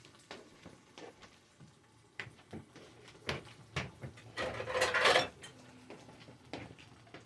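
Kitchen clatter: dishes and utensils clinking and knocking in scattered short strikes, with a louder, longer rattle about halfway through.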